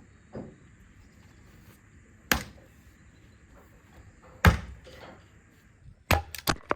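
Sharp knocks or thuds, like things being set down or struck during kitchen work: one about two seconds in, a louder one at about four and a half seconds, then a quick run of four near the end.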